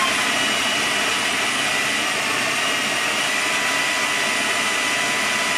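Food processor motor running at full speed, its blade churning soaked dates, butter and rice malt syrup into a smooth batter: a steady whine over a hiss.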